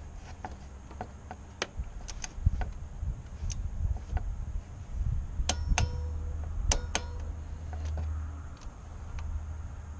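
Ratchet of a click-type torque wrench clicking in irregular bursts as the 10 mm bolts of a power steering pressure-line fitting are torqued down to 96 inch-pounds, over a low rumble.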